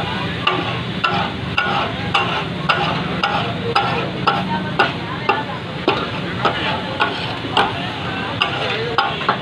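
Metal spatulas striking and chopping on a large flat iron griddle (tawa), about two clacks a second, over steady sizzling: the rhythmic clatter that kata-kat (tak-a-tak) is named for.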